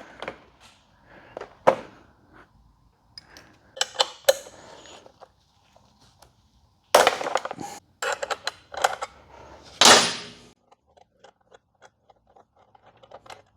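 Metal hand tools, a 10mm socket wrench and spanner, clicking and clinking in short irregular bursts while a nut and bolt are undone.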